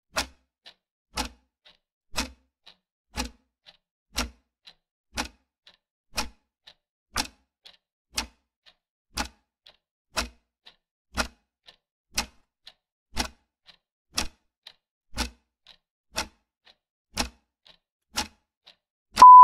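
Countdown-timer clock ticking: a sharp tick about once a second with a fainter tock between, then a loud steady beep near the end as the timer runs out.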